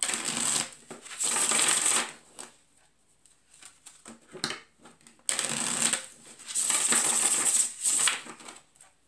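Tarot cards being shuffled by hand, in two bouts of papery rustling a few seconds each, with a short pause between.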